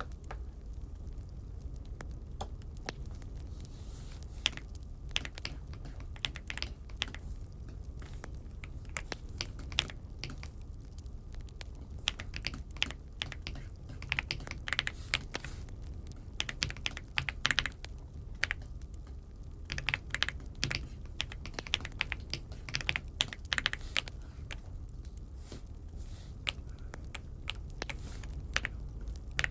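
Typing on an Aula F75 mechanical keyboard: irregular runs of key clicks with short pauses between bursts, over a steady low hum.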